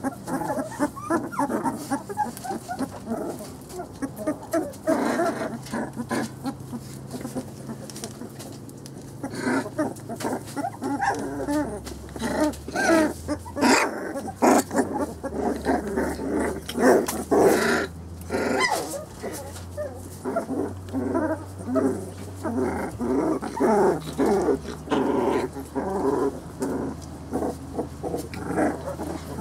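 A litter of three-week-old Brittany puppies whining and squealing, many short high cries overlapping, loudest about halfway through.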